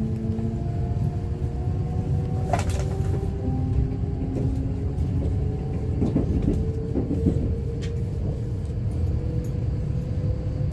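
Kintetsu limited express electric train running, heard from inside the carriage: a steady low rumble under a motor whine that climbs slowly in pitch as the train gathers speed, with a few sharp clicks from the wheels.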